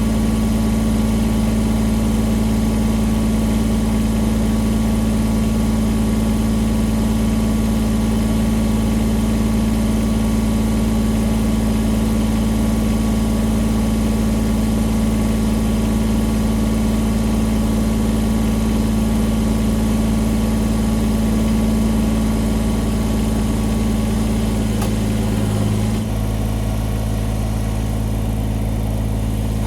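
An engine running steadily at a constant speed, then throttled down to a lower, slower idle near the end.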